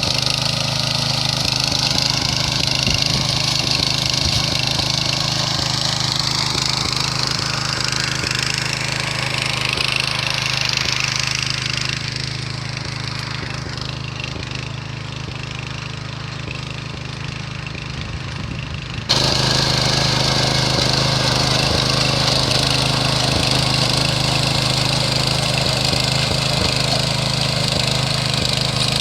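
Small engine of a motor cultivator (tiller) for ploughing, running steadily. It turns abruptly louder about two-thirds of the way through.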